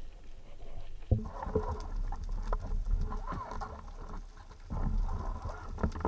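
Underwater sound picked up by a speargun-mounted camera: a low water rush with many scattered clicks and knocks, busier from about a second in.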